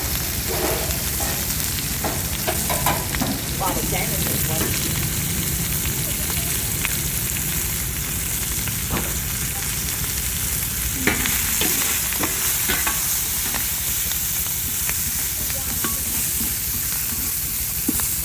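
Food sizzling in a hot pan as it is stir-fried, a steady frying hiss over a low rumble. Utensils clink and scrape against the pan now and then.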